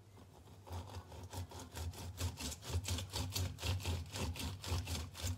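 Half a lemon twisted back and forth by hand on a plastic reamer citrus juicer: a rapid rhythmic rubbing, about four strokes a second, starting under a second in.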